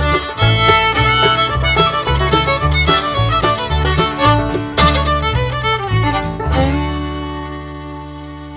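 Background music with fiddle and guitar in a bluegrass style over a steady bass beat, ending about six and a half seconds in on a held chord that fades out.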